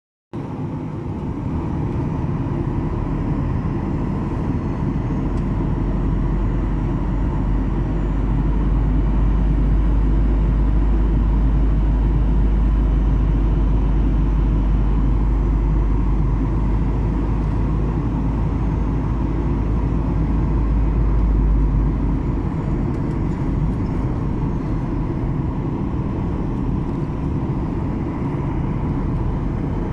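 Steady cabin noise inside a Boeing 737-800 jet airliner in flight: engine and airflow rumble. A very deep rumble underneath drops away about 22 seconds in, leaving the steady noise.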